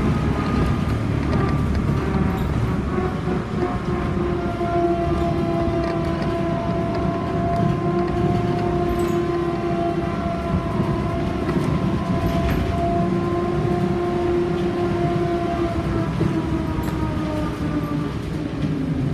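Škoda 14Tr08/6 trolleybus under way, heard from the front of the passenger area: a steady multi-tone electric whine from its traction motor and drive equipment over road and body rumble. The whine drifts gently and falls in pitch near the end.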